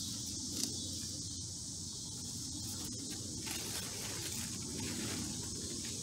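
Steady, high-pitched insect chorus that runs on without a break, with a low rustle of handling and foliage underneath.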